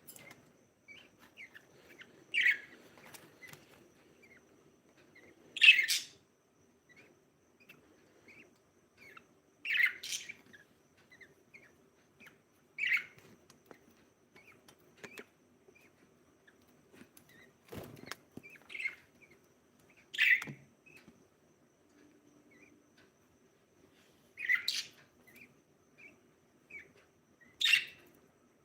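Budgie chirping: short, loud single chirps every few seconds, with faint little chirps in between. One dull thump comes about two-thirds of the way through.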